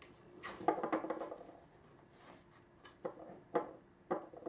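A cat batting at a toy in a nylon fabric play cube: a rustling scuffle of paws against the fabric about half a second in, then three short, sharp taps about half a second apart.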